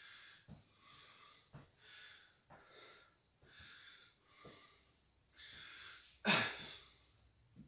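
A man panting hard through the mouth, about one breath a second, winded from shadowboxing drills. About six seconds in comes one much louder, sharp exhale.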